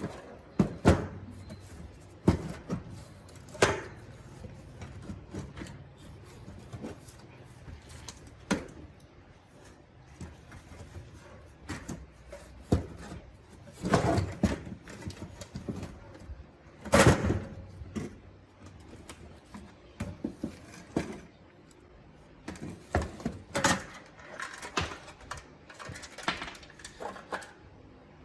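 Irregular clicks and knocks of plastic and metal parts being handled during work on an old Sanyo radio cassette player, with the loudest knocks about a second in, around fourteen seconds and around seventeen seconds.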